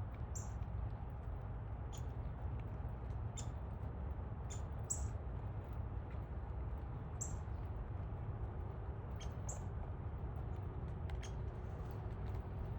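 Small birds giving short, sharp, high chip notes, about a dozen scattered irregularly, over a steady low background rumble.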